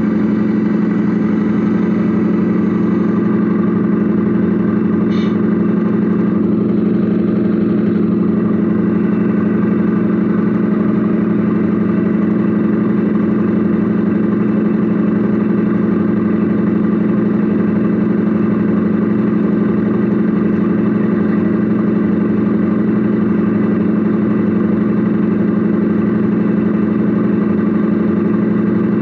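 Steady engine-like drone of a radio-controlled Mercedes Actros SLT model truck, heard from inside its cab: a constant low hum with overtones that holds the same pitch and level throughout.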